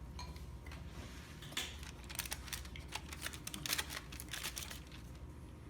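Close-up eating sounds: a quick run of small crisp clicks and taps from chewing and utensils, starting about a second and a half in and thinning out near the end.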